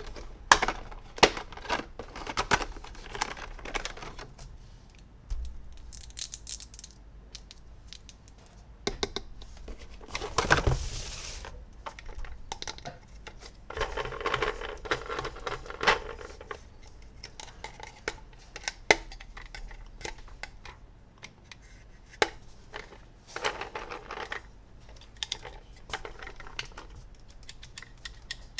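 Toy unboxing handling sounds: plastic packaging crinkling and tearing, with many sharp clicks and taps of hard plastic toy parts. There are two longer stretches of rustling, one near the middle and one a little after.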